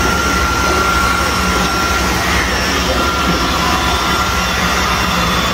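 Robot vacuum cleaner running: a loud, steady whir with a faint thin whine above it.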